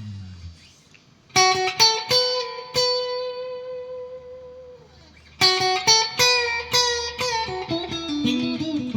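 Electric guitar played with a clean tone. A few plucked notes come in about a second in, and one of them is held, ringing and slowly fading, for several seconds. Then a quicker phrase of single notes steps down in pitch.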